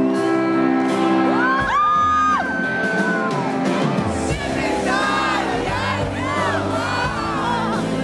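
Live rock band starting a song in a concert hall, heard from the crowd: a held chord, then bass and drums coming in about four seconds in. A loud whoop from the audience about two seconds in, and the crowd cheering and whooping over the music.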